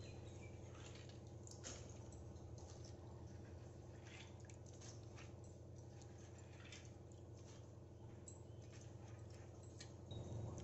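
Faint wet sounds of hands rubbing and rinsing soaked chana dal in water in a steel colander, with scattered small splashes and drips, over a steady low hum.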